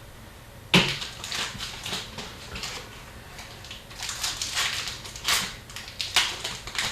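Hockey card packs being torn open and the cards handled: a run of crinkling, rustling bursts, the first and sharpest a little under a second in.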